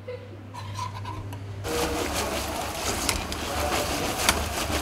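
Fries deep-frying in hot oil: a dense crackling sizzle that starts suddenly about a second and a half in, over a low steady hum.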